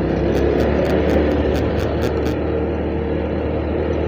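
Motorcycle engine running steadily while riding, with a run of light ticks, about four a second, over the first two seconds.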